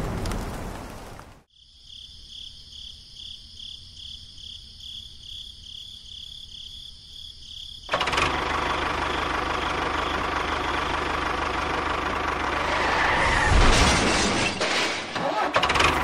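Rain hiss that cuts off after about a second and a half, then faint, evenly pulsing high chirping. About halfway through, a miniature tractor's engine-like running noise starts abruptly and carries on steadily, a little louder near the end.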